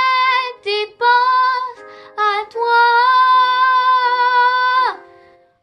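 A young girl singing in French over a soft instrumental backing track: a few short sung phrases, then one long held note that falls off near the end.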